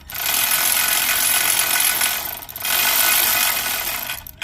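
Ratchet wrench with a 13/16 deep socket clicking in two long runs, with a short break a little over two seconds in, as the spark plug is backed out of a Honda GCV190 engine.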